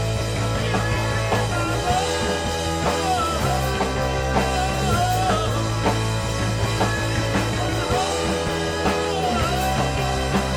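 Band jamming a rock piece, full band playing loud and steady. Long held bass notes change every couple of seconds under a lead melody with bending, sliding notes.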